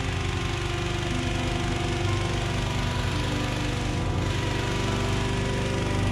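Petrol-engined balloon inflator fan running steadily at speed, blowing cold air into a hot air balloon envelope during cold inflation.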